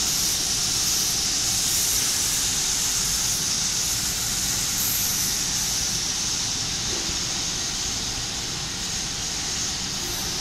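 Steady hissing run of a double-side wood router machine and its extraction, spinning at an even pitch with no cutting strokes.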